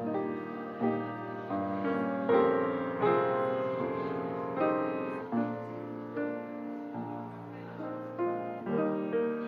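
Piano music, with notes and chords struck roughly once a second and left to ring.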